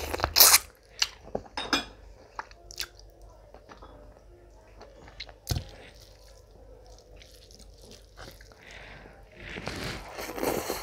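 Close-miked eating by hand: biting and chewing a piece of mutton, with loud sharp crunching clicks in the first two seconds and quieter wet clicks after. Near the end a louder stretch of mouth noise as a handful of spiced rice is pushed into the mouth.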